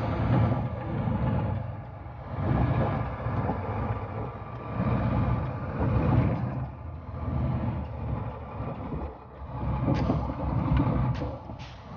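Vehicle driving slowly on a muddy dirt road in the rain, heard from inside the cab. A low engine and road rumble swells and fades about once a second, with a few sharp clicks near the end.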